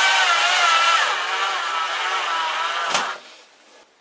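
Wood screw being driven into a nylon block, a continuous squealing rasp that wavers in pitch for about three seconds and ends with a sharp click.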